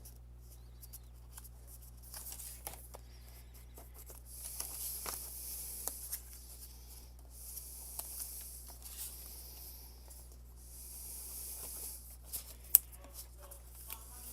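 A scoring tool drawn along paper to score fold lines, making several long scratchy strokes about a second or more each, with small taps of paper handling and one sharp click near the end. A steady low hum runs underneath.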